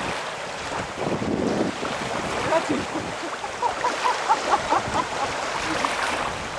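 Wind buffeting the microphone over lapping, splashing lake water as dogs swim. In the middle comes a run of short, high-pitched dog whines and yips.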